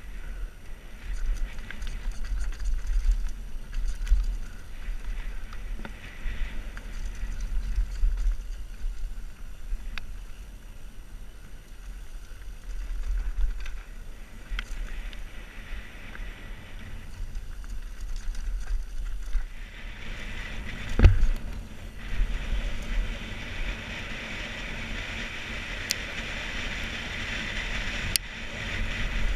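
A Scott Gambler downhill mountain bike descending a dirt trail: tyres on dirt and the bike's parts rattling and clicking, with wind rumbling on a helmet-mounted microphone. A single loud knock about two-thirds through, then a steadier hiss as the bike rolls onto a smoother, wider track.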